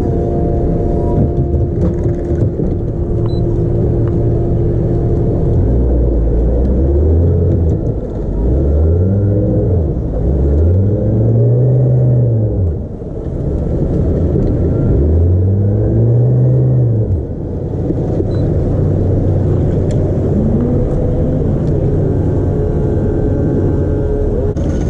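Suzuki outboard motor running at idle, revved up and back down several times in the middle, twice strongly, then settling back to a steady idle.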